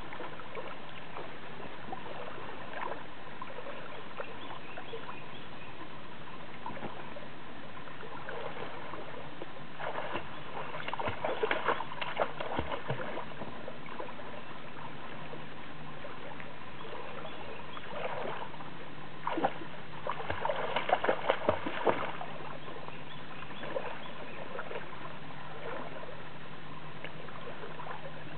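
A Weimaraner splashing as it wades and swims in lake water after a fishing float. The splashing comes in two louder bouts, one about a third of the way in and one about two-thirds in, with quieter water movement between.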